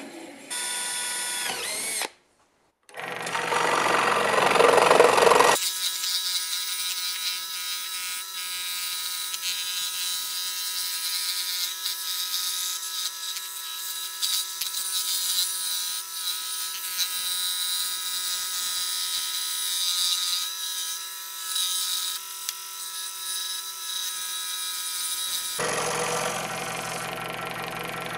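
Electric scroll saw running steadily and cutting a pine board, its reciprocating blade working around an inner curve. A band saw cutting pine opens the sequence. After a short silent break there is a louder burst of power-tool noise before the scroll saw takes over, and the sound changes again near the end.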